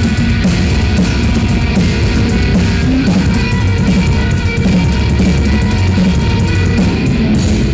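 Heavy metal band playing live and loud: electric guitar, electric bass and a drum kit with rapid cymbal and drum strokes.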